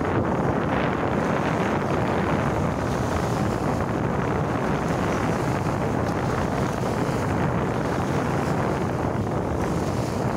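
Steady wind blowing across the microphone, with small sea waves washing onto the shore underneath.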